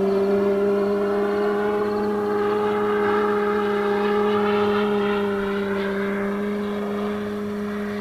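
Electric radio-control P-47 model flying past: its electric motor and 24-inch propeller together with its onboard sound system playing a simulated Pratt & Whitney R-2800 radial engine. The steady, low-pitched drone swells a little midway and eases slightly near the end.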